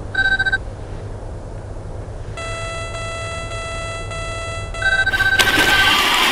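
Retro video-game style electronic beeps over a steady low rumble from the RC tank's motor and tracks. A short beep comes just after the start, then a buzzing tone pulses evenly for about two seconds as dialogue text is printed, then a higher beep. Near the end a louder, noisy hiss comes in.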